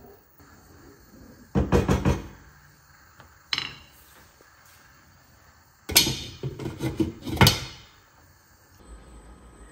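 Kitchen clatter: two bursts of quick knocks and bangs of cookware and cupboard doors, with a single clink that rings briefly between them.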